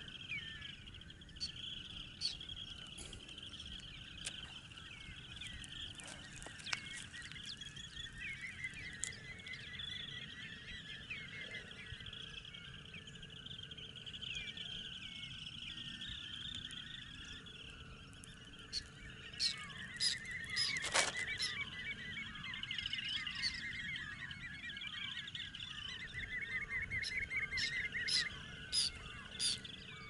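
Calls from a large flock of wading shorebirds: a dense chorus of trills and chirps, with a run of short downslurred notes about two-thirds of the way in. A few sharper, louder calls sound near the middle and again near the end.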